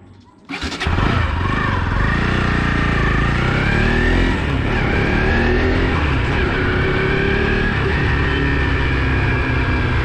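Motorcycle engine starting on the electric starter about half a second in, then running as the bike pulls away and rides on, its pitch rising and falling with the throttle and gear changes, with wind noise over the microphone.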